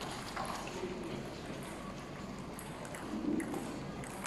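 A few faint, sparse clicks of table tennis balls against bats and tables over the steady murmur of a busy sports hall.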